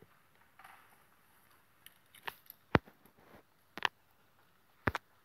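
A series of sharp clicks starting about two seconds in, the loudest about a second apart, from taps on the recording phone's touchscreen as the slides are flipped.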